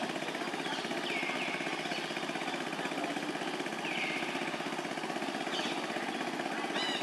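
Outdoor ambience: a steady, fast-pulsing buzzing din, with two short falling whistled calls and a brief chirp near the end.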